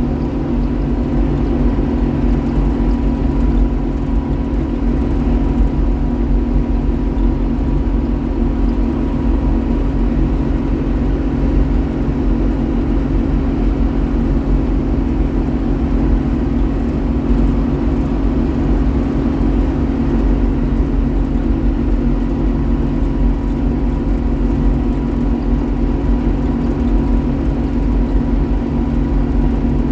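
Combine harvester running steadily while shelling corn, a constant engine and machinery hum with no change in speed.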